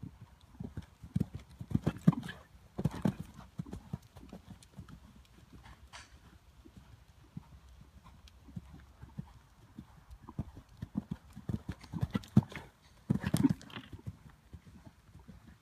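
Hoofbeats of a bay show-jumping horse cantering on an arena's sand surface: dull thuds in a three-beat rhythm, loudest in two spells about two seconds and twelve seconds in, as the horse passes close by.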